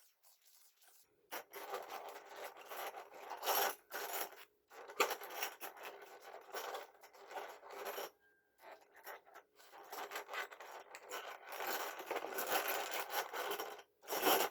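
Packaging being handled, with scraping and small metallic clinks from loose tufting nail-gun staples, in irregular stretches broken by short pauses.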